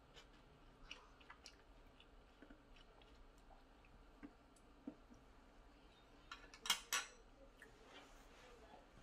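Faint clicks of wooden chopsticks against a plastic takeout tray and sauce cup, then two sharper clacks close together about seven seconds in as the chopsticks are set down on a glass tabletop.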